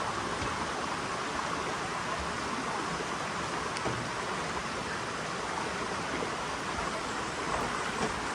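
Waterfall's falling water rushing steadily, an even wash of noise with no pauses.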